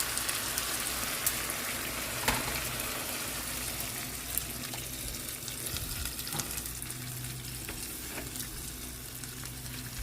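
Chicken sizzling in a hot pan on the stove, a steady hiss broken by a few sharp clicks.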